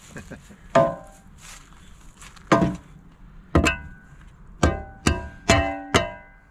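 A long-handled steel tool is driven into packed dirt and stone, about seven blows. Each strike rings briefly like struck metal, and the blows come faster in the second half.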